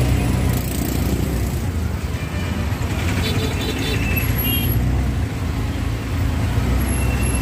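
Dense road traffic passing close by: buses, cars and auto-rickshaws with a steady low engine rumble. A few short high-pitched tones sound about three to four seconds in.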